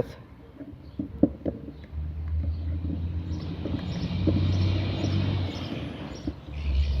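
A few light clicks, then the low rumble and hiss of a motor vehicle going by, swelling and fading over a few seconds.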